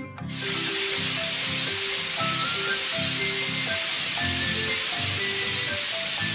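Cartoon paint-spray sound effect: a loud, steady hiss as paint jets from a spray nozzle, starting just after the beginning and cutting off at the end, over light background music.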